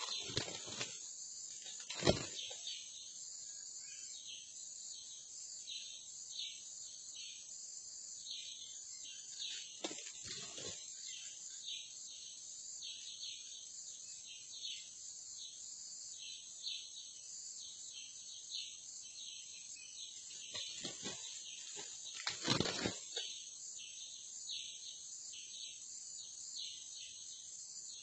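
Steady chorus of forest insects with many short pulsed chirps, broken a few times by brief flurries of wing flapping and scuffling in dry leaves from a red junglefowl rooster. The loudest flurries come about two seconds in and about three-quarters of the way through.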